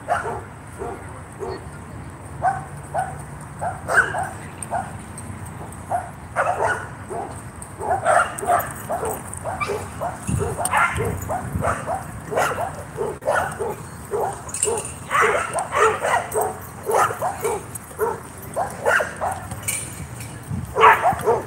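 Dog barking over and over, in quick runs of short barks.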